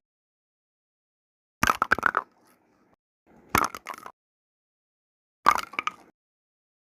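Three short bursts of rapid clicks and knocks from small hard objects, about two seconds apart, with silence between them.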